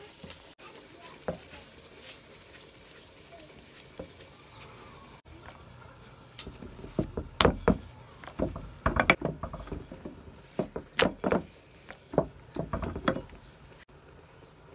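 Rolling pin working dough on a wooden board: a run of sharp clacks and knocks, bunched in the second half.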